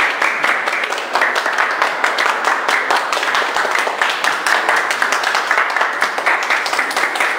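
Several people clapping their hands in a dense, unbroken run of claps.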